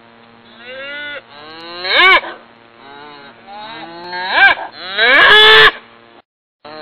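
Cattle mooing repeatedly: several drawn-out calls that rise and fall in pitch, the last one the longest and loudest, cutting off suddenly about six seconds in.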